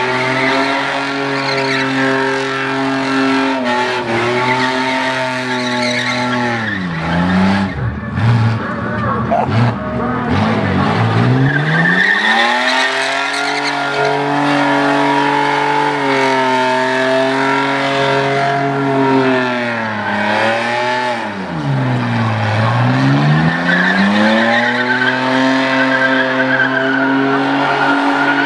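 Holden VN Commodore's 3.8-litre Buick V6 held at high revs in a burnout, tyres screeching against the track. The revs drop sharply twice, about a quarter of the way in and again about three quarters of the way in, and climb back each time.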